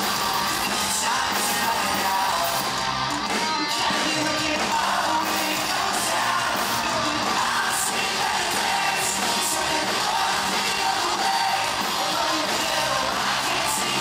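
Pop-punk band playing live through a concert PA: electric guitars, bass and drums with a lead singer's vocal, steady and loud throughout.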